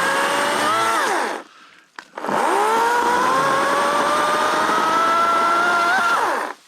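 EGO 14-inch battery-powered chainsaw run twice: the electric motor whine rises to speed, holds for about a second and winds down, then runs again for about four seconds, edging slightly higher in pitch, before falling away as the trigger is released, likely while trimming branches.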